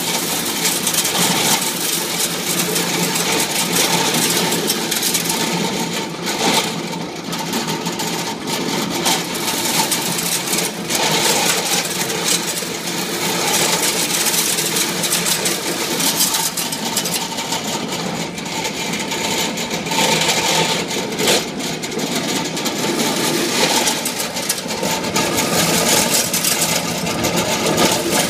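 Motorized McCormick corn sheller running steadily on its belt drive, ears of corn being shelled in it and the loose kernels clattering out into a bucket.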